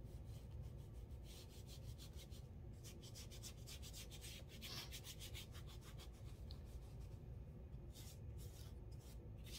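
Faint scratchy rubbing of a paintbrush scrubbed back and forth over a crayoned paper page, in quick repeated strokes with a couple of short pauses.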